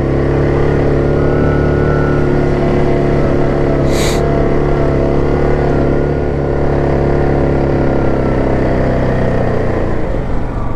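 2017 Yamaha Grizzly 700 ATV's single-cylinder engine pulling steadily under load as the machine climbs a steep trail, with a brief hiss about four seconds in. The engine eases off near the end.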